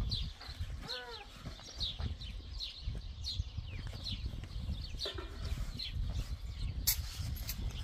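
Birds chirping in short, high, downward chirps a few times a second, with a brief hen's cluck of falling notes about a second in, over a low rumble. A sharp click near the end.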